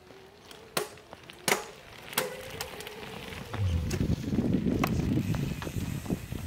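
Electric mountain bike rolling past close on a gravel trail: tyres crunching over gravel, loudest a little after the middle, after a few sharp clicks and knocks from the bike and a faint steady whine.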